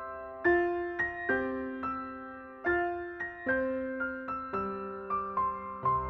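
Background music: a soft piano playing slow single notes and chords, each struck and left to fade, about one a second.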